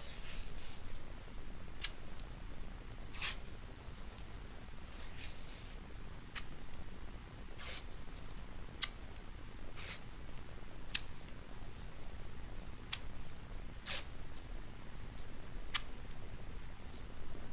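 White athletic tape being pulled off the roll and torn by hand as it is laid onto a foot. About a dozen short rasps of tape unspooling and sharp snapping tears, one every second or two, with light rustling between.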